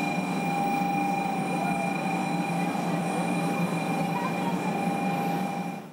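Station platform sound around a 500 series Shinkansen: a steady high-pitched tone held unchanging over a low hum and background murmur.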